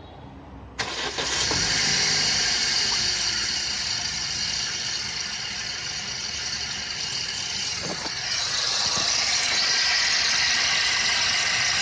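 Opel Corsa C 1.2 Twinport four-cylinder petrol engine running with a loud, high whistling hiss that comes in abruptly about a second in and grows louder about eight seconds in. The whistle is an unexplained noise that appears as soon as the engine starts and rises with engine speed.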